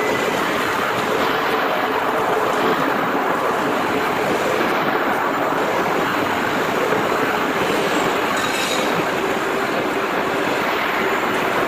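Steady machinery noise, an even rushing din with a faint hum, from a running four-roller plate bending machine in a sheet-metal shop.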